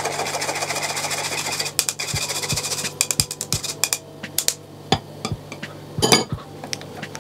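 Stainless-steel mesh sieve sifting flour: a spoon scraping and rattling against the mesh in a fast rasp for the first couple of seconds, then a run of sharp metal taps, and a louder clink about six seconds in.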